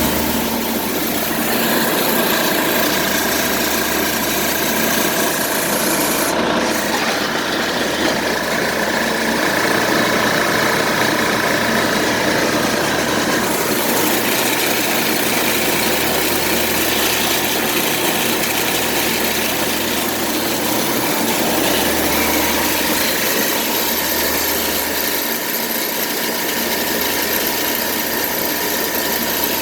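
Compressor 1 of a rooftop HVAC unit running: a steady mechanical hum with a loud, even rushing noise over it.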